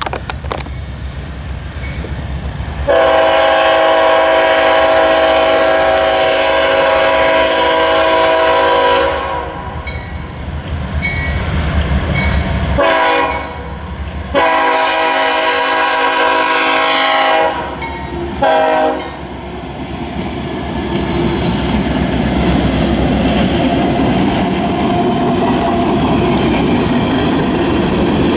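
Freight locomotive's multi-chime air horn sounding four times: a long blast of about six seconds, a short blast, a long blast of about three seconds and a final short blast, over the low rumble of the diesel. After the horn the train runs past with the clickety-clack of wheels on the rails, growing louder toward the end.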